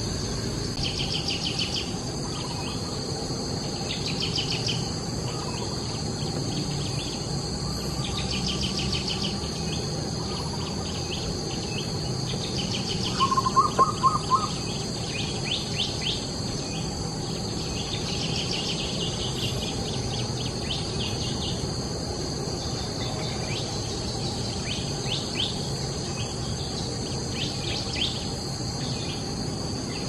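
Steady high-pitched insect chorus, with pulsed chirping that returns every few seconds. About 13 seconds in, a bird gives a short run of four or five loud notes.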